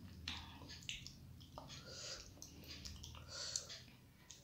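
Close-miked eating sounds: irregular wet mouth clicks and smacks of chewing.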